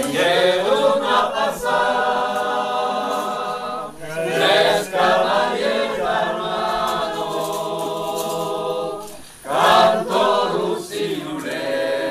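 A small group of men and women singing an Occitan song unaccompanied, in long held phrases with two brief pauses for breath.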